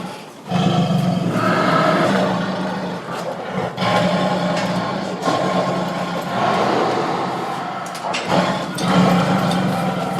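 Tiger roaring in long, rough, drawn-out calls, three or so in a row with short breaks between them.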